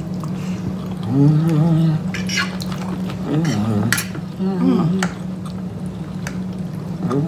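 Two people eating: wet chewing and mouth sounds, forks clicking on plates, and a few short hummed "mm" sounds, over a steady low hum.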